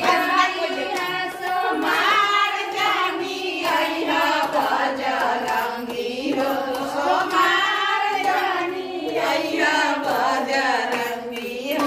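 Women singing a devotional Shiva bhajan together, with steady hand clapping keeping time.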